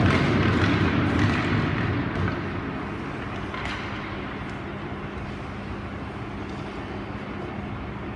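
Ice hockey arena ambience: a loud wash of hall noise dies down about two seconds in, leaving a steady rink hum with a faint knock now and then.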